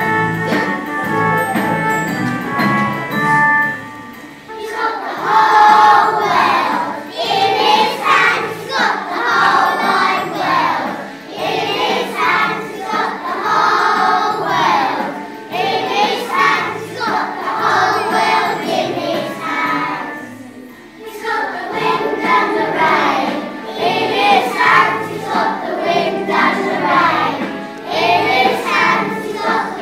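A group of children singing a hymn together with instrumental accompaniment. The accompaniment plays alone at first, and the voices come in about four seconds in. There is a short break in the singing about two-thirds of the way through.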